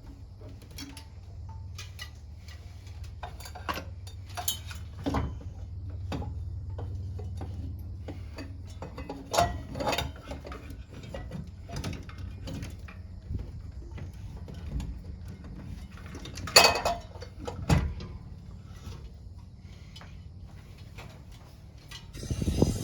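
Irregular clicks, clinks and knocks of metal hardware being handled during a ceiling fan installation, with a few louder knocks about ten seconds in and near the end, over a low steady hum for the first half.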